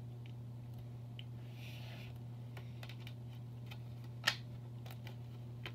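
Plastic Blu-ray case and discs being handled as the discs are put back in: a few light clicks and one sharper click about four seconds in, over a steady low hum.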